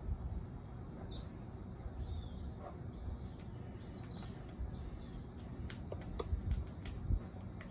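Amazon parrot eating dried fruit from a bowl: sharp clicks and cracks of its beak on the food, coming in quick succession through the second half. Short high chirps, falling in pitch, sound a few times over a low steady rumble.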